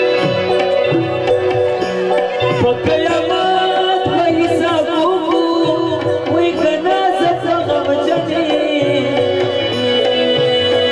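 Live music: tabla strokes under held keyboard notes, with a male singer's voice weaving a wavering melody from about two and a half seconds in, fading back before the end.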